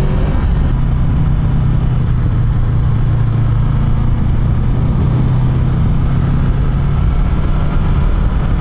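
Honda VFR800F's 800 cc V4 engine running steadily at an even pitch while riding, with a steady rush of wind noise.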